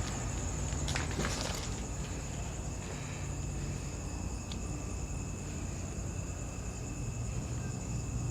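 Night insects chirring steadily on one high pitch, with a few faint clicks about a second in.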